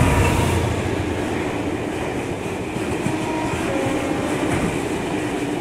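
Train running along the track, a steady rumble with wheels clattering over the rail joints.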